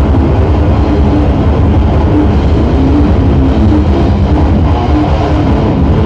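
A metal band playing loud and live: distorted electric guitars, bass and drum kit together in a dense, unbroken wall of sound.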